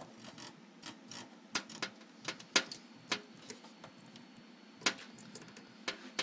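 Irregular small plastic clicks and taps as a SATA power cable and connector are handled and pushed onto a hard drive's power port, with a few sharper clicks among them.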